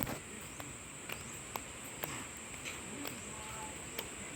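Insects drone steadily at a high pitch, with irregular sharp clicks and a faint bird call over it.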